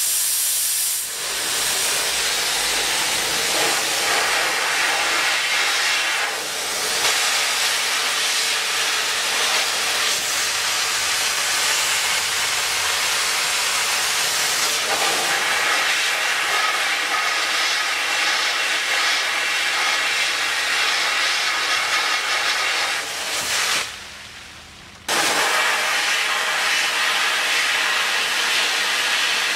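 Sandblaster nozzle blasting abrasive with compressed air onto a Derbi moped frame: a steady hiss that eases briefly about a second in and again near six seconds, and stops for about a second some five seconds before the end before starting again.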